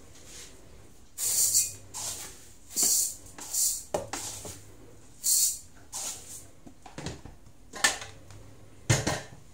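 Dry uncooked rice being scooped from a plastic storage bin and poured into an aluminium rice-cooker pot: four short pours of grains in the first six seconds. Then three sharp knocks, the loudest near the end.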